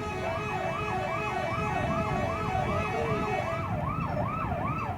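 Bus telolet horn playing a rapid up-and-down siren-like warble, about two and a half swoops a second, after a brief steady tone at the start.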